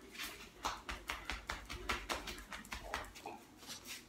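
Irregular clicking and tapping of dogs' claws and flip-flop footsteps on a tile floor as two dogs move around a person's feet.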